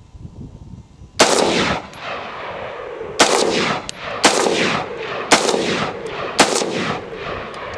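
Bushmaster XM15 AR-15 rifle fired five times in single shots: one shot, then after about two seconds four more roughly a second apart. Each shot trails off in a long echo.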